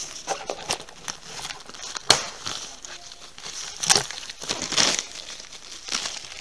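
Plastic shrink-wrap around a magazine partwork pack crinkling and crackling as it is handled, in irregular bursts, with a sharp crack about two seconds in.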